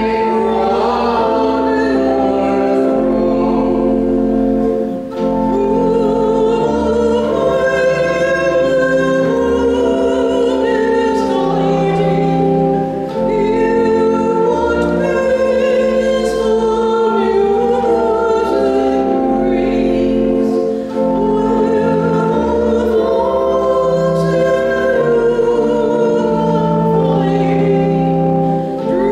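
Hymn at the preparation of the gifts: voices singing a wavering melody over steady held accompanying chords with low bass notes, in phrases of about eight seconds with a short break between each.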